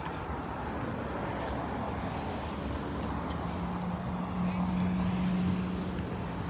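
A car passing close by, its steady engine and tyre hum building to loudest about four to five seconds in, then fading, over a constant wash of street noise.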